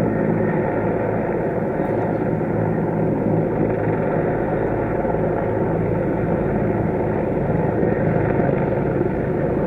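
Steady engine drone with an even pitch and no change in level.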